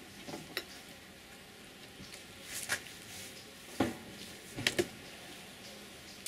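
Metal hive tool prying and levering wooden hive frames apart in an open beehive: several short, sharp cracks and scrapes, the loudest a single one a little before the middle and a quick pair a little after it.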